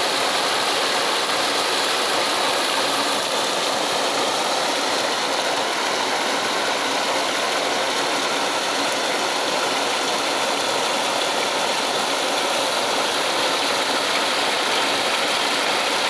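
Small waterfall pouring over a rock ledge into a pool: a steady rush and splash of falling water.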